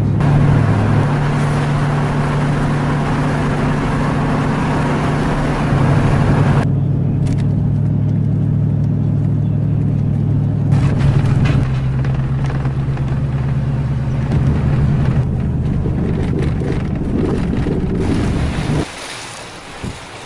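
Pickup truck engine hum and road noise heard from inside the cab while driving. The engine's pitch steps a few times, and the tyre and road rush is strong at first, then thins after about six seconds. Near the end the sound drops away sharply to quieter wind noise on the microphone.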